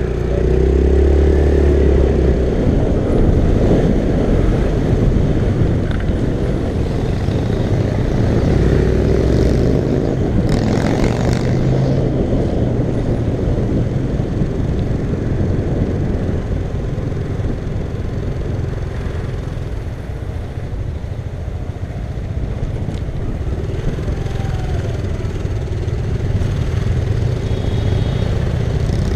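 Car driving in traffic: a steady drone of engine and road noise, with a brief louder rush of noise about ten seconds in.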